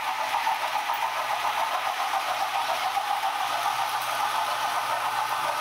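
H0 model trains running on the layout: a steady rattling hum of locomotive motors and wheels on the track, pulsing several times a second, as a Mikado steam locomotive with freight cars rolls past.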